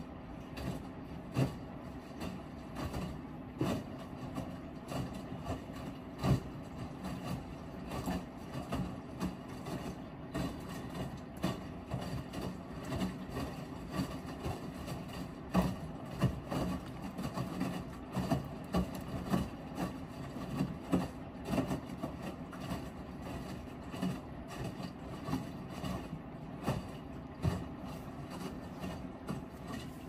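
Miele W5877 front-loading washing machine running, with a steady motor hum and irregular knocks and thuds as the drum turns.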